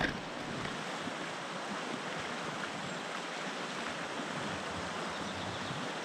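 River water rushing steadily over a shallow riffle, a constant even hiss.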